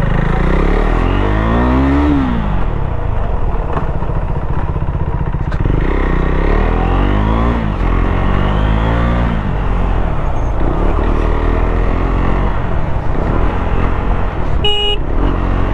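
KTM Duke 390's single-cylinder engine pulling hard under acceleration, its pitch climbing and then dropping at each gearchange, about four times. A short beep near the end.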